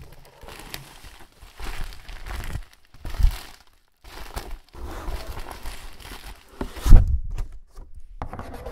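Plastic wrapping and bubble wrap crinkling and tearing as a parcel is unwrapped, with dull thumps from the cardboard box being handled, the loudest about seven seconds in.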